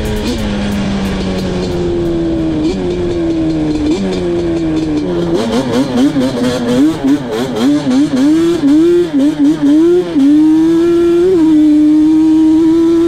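Yamaha Banshee 350 quad's twin-cylinder two-stroke engine being ridden. Engine speed sags slowly and picks up sharply twice, then rises and falls rapidly with quick on-off throttle through the middle, and holds a steady pitch near the end.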